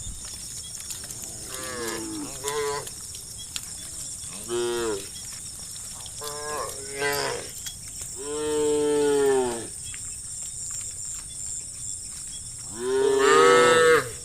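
Cows in a herd mooing: several separate calls, short ones in the first seven seconds, a longer one about eight seconds in, and the loudest near the end.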